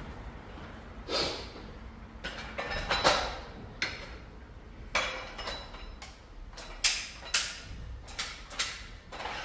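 Dumbbells being set down and picked up, clanking against each other and the floor: a series of about seven sharp knocks, several with a short metallic ring, as lighter dumbbells are swapped for heavier ones.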